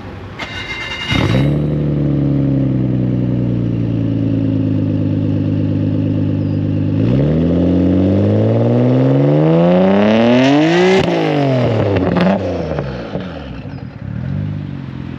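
Nissan Skyline R32 engine heard at its single-exit aftermarket exhaust: it cranks and catches about a second in and settles to a steady idle. From about halfway it revs up in one long rising sweep, drops back, gives one short blip and returns to idle.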